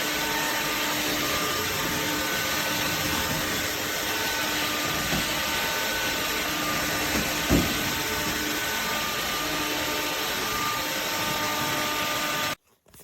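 Electrolux Ergorapido cordless stick vacuum running steadily with a light motor whine, with a brief knock about seven and a half seconds in. It cuts off suddenly near the end.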